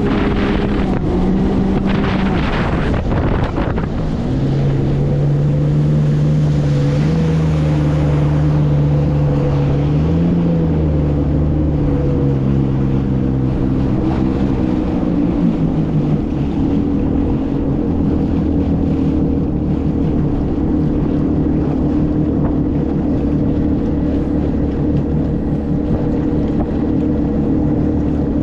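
Jet-drive outboard on an aluminium jet sled running under way at speed on a test run after repairs, the engine note shifting a few times in the first half and then holding steady, with wind and water rush.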